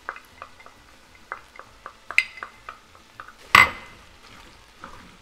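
Wooden spoon stirring chopped onions, garlic and beef in an enamelled cast-iron pot, with a string of light taps and clinks and one louder clank about three and a half seconds in.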